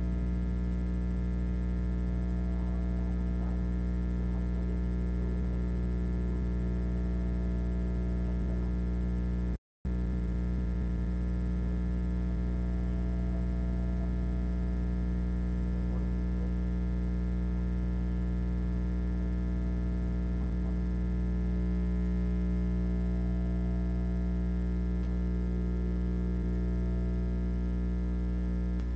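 Steady, loud electrical hum with a buzzy row of overtones, dropping out for an instant about ten seconds in.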